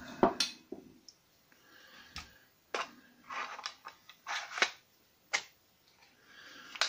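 Handling sounds of a 3D-printed prop pistol and its airsoft gas magazine on a workbench: a sharp knock near the start as a gas can is set down, then several separate plastic clicks and short scrapes as the parts are fitted together.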